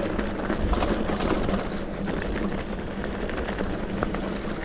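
Mountain bike rolling over a loose gravel road: the tyres crunch on stones and the bike rattles, with small clicks scattered through. Under it runs a steady buzz, typical of the rear hub's freewheel ratchet while coasting.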